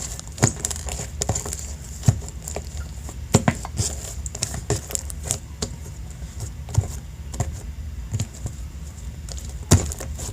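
Slime being kneaded and squeezed by hand as shaving cream is worked into it, giving irregular wet squishes, clicks and pops.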